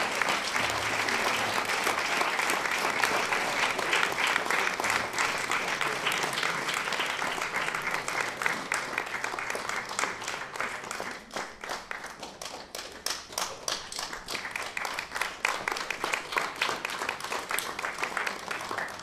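Audience applauding: dense, steady clapping that thins to more separate, scattered claps in the second half.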